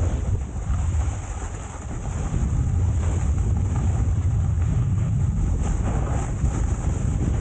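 Wind buffeting the camera's microphone, a steady low rumble that eases briefly about two seconds in.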